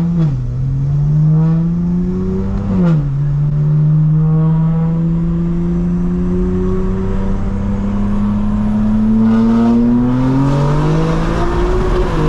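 BMW M4's S58 twin-turbo inline-six under acceleration. The revs climb, drop sharply on an upshift about three seconds in, climb slowly for several seconds, and drop again with another upshift near the end.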